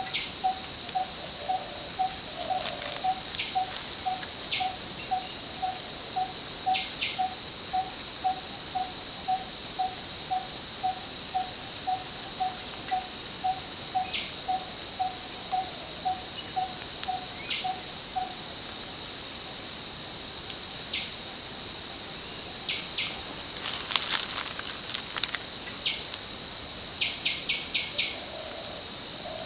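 Forest ambience dominated by a steady, loud, high-pitched drone of insects. Beneath it, a low note repeats evenly about twice a second, stopping about two-thirds of the way through, and birds give scattered short chirps, clustering near the end.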